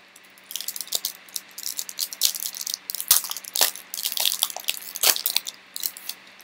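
Foil trading-card pack wrapper crinkling and tearing as gloved hands open it, a dense run of irregular sharp crackles.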